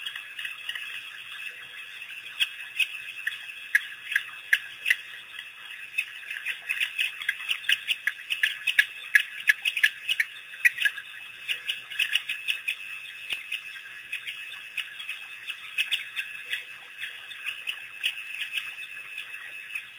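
African wild dogs twittering: many quick, high-pitched, bird-like chirps, densest in the middle, over a steady high hiss.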